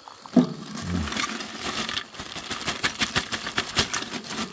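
Lumps of charcoal clattering as they are tipped out of a plastic bag onto a bed of pine needles, the bag rustling, with many quick irregular clicks and knocks from about a second in.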